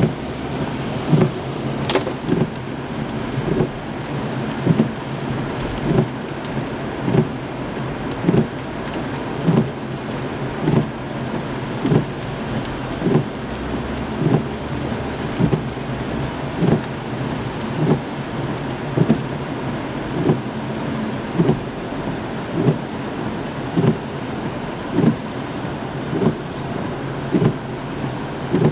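Windshield wipers sweeping steadily in heavy rain, a low thump about every 1.2 seconds, over the constant hiss of rain on the car and tyres on the wet road, heard inside the car's cabin. A single sharp click about two seconds in.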